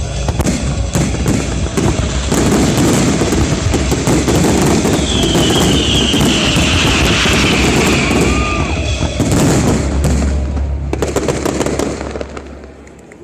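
Fireworks display: a dense barrage of bursts and crackling that dies away near the end.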